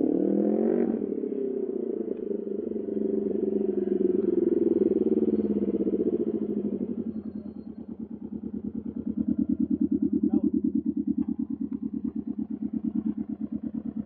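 Can-Am Ryker 600's Rotax two-cylinder engine through an RLS Carbon Series aftermarket exhaust, running under steady throttle as the trike rides up. It eases off around seven seconds and settles into a steady, pulsing idle.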